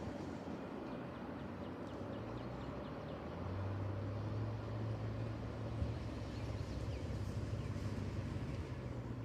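CSX double-stack freight train rolling past, a steady low rumble that grows louder about three and a half seconds in, with faint quick ticking over it early on.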